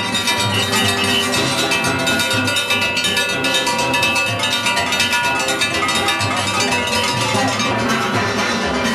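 Steel band playing soca: steel pans ringing out the melody over a fast, loud, metallic clanging rhythm from the iron, the struck brake-drum percussion of a J'ouvert band.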